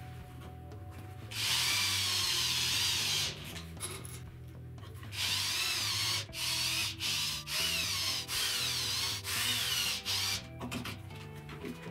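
Power drill driving screws into pine rails: one run of about two seconds, then a string of short pulses, the motor's whine wavering in pitch under load.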